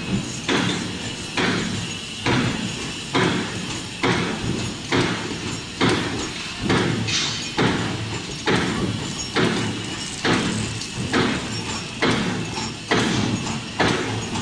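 Punch press blanking small aluminum discs from coil strip: a heavy stroke a little more than once a second, each with a short ringing tail, over the steady running of the factory machinery.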